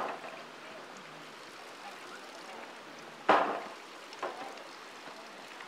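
Water running from a pipe through animal intestines as they are flushed clean, a steady trickle with sudden splashes right at the start and about three seconds in, and a smaller one just after.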